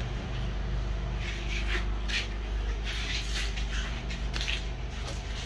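A steady low mechanical hum with a few faint, brief scrapes and clinks over it.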